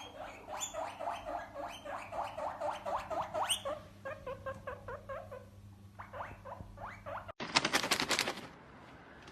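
A small animal squeaking in a rapid series of short, high squeaks, several a second. After a sudden cut about seven seconds in, there is about a second of noise.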